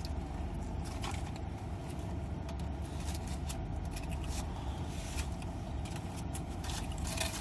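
Steady low rumble with scattered light clicks and crinkles of fast-food packaging and a sauce cup being handled.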